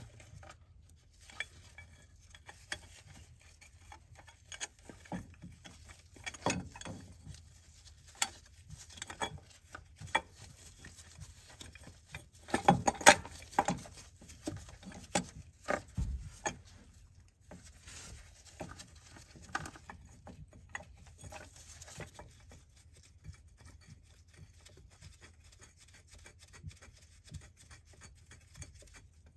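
Scattered small metallic clicks, taps and scrapes as an oil filter housing and its bolt are handled and worked into place by hand against an engine block, with a cluster of louder knocks about halfway through.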